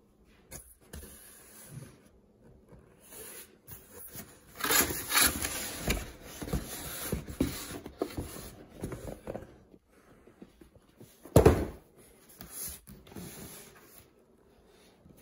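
Cardboard boxes scraping and rubbing against each other as packed inner boxes are pulled out of a shipping carton, with one loud thump about eleven seconds in as a box is set down on the table.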